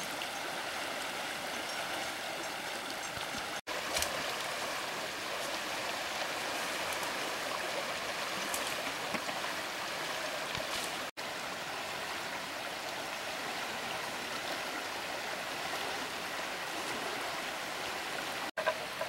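Steady rushing of a fast-flowing river current. The sound cuts out for an instant three times.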